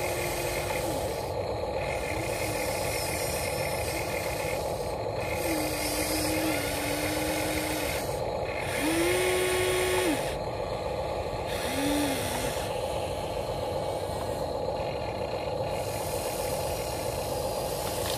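Electric motors of a Huina 1593 RC excavator whining as its boom, arm, bucket and upper body move: a constant hum with about five short, steady-pitched whines that start and stop, the loudest about halfway through.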